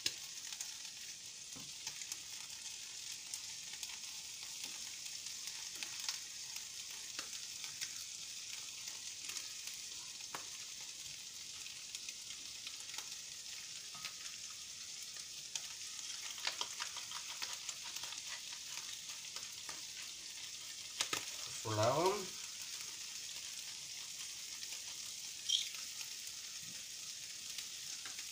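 Prawns and garlic sizzling in hot oil in a frying pan: a steady high hiss with scattered crackles and pops, as the prawns cook after being turned. A brief voice-like sound stands out about three quarters of the way through.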